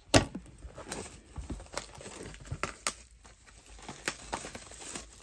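Baseball card packs being taken out of a cardboard box and handled: a sharp tap right at the start, then scattered light clicks and crinkles of the wrappers.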